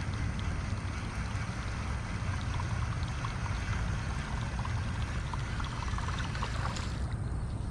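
Wind buffeting the microphone: a steady low rumble with a hiss over it and faint scattered ticks. The hiss thins out near the end.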